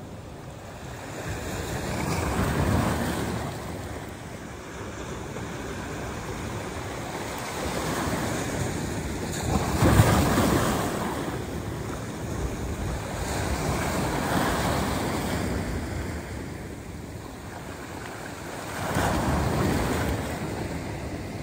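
Small sea waves washing in over shoreline rocks and splashing against them, the surf swelling and easing every four or five seconds, with the loudest splash about ten seconds in.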